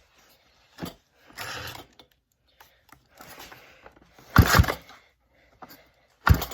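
Starter rope of a McCulloch Pro Mac 610 chainsaw being yanked about four times, the loudest pull about two thirds of the way through. The engine is turned over against compression with a compression tester in the spark plug hole, and it is hard to pull over.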